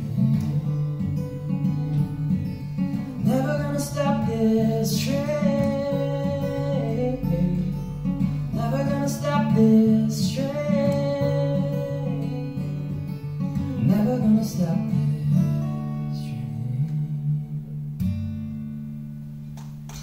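Solo acoustic guitar playing the closing bars of a song live, with a man's voice singing over it at times. A last chord is struck near the end and left to ring out.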